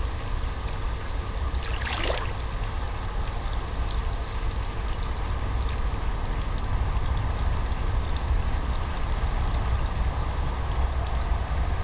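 Water sloshing and swishing as a clothed person kicks and wades through a small above-ground pool, with a brief louder swish about two seconds in, over a steady low rumble.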